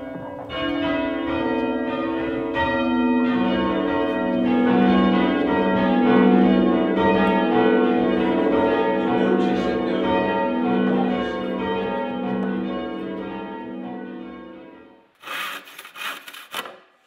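Church bells rung in changes, the bells struck one after another in an even, continuous round with long ringing tones. The ringing starts about half a second in and stops suddenly about fifteen seconds in, followed by a few sharp knocks and scrapes.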